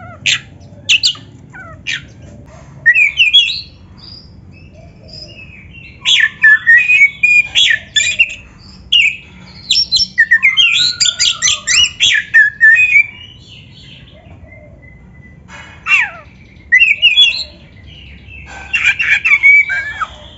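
Oriental magpie-robin (kacer) singing: loud, varied phrases of whistled notes that sweep up and down, in bursts of one to three seconds with short pauses between.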